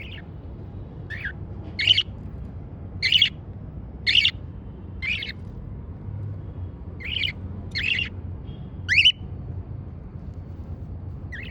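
Cockatiel squawking: about nine short, shrill calls, roughly one a second, with a pause midway.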